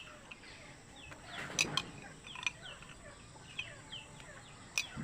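Chickens clucking and peeping in the background, many short high falling calls. Three sharp clicks stand out, two about a second and a half in and one near the end, as seeds are picked out of the squeezed-fruit mixture.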